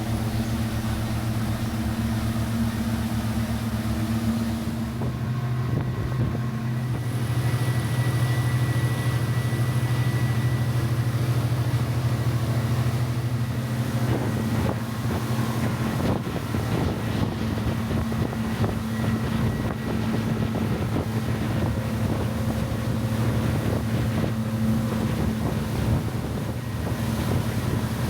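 Motorboat engine running with a steady drone, its note changing about five seconds in and again about halfway through, with wind on the microphone.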